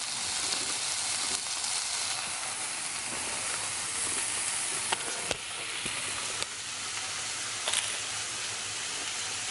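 Chicken pieces and egg whites frying in a nonstick pan: a steady sizzle with a few scattered pops.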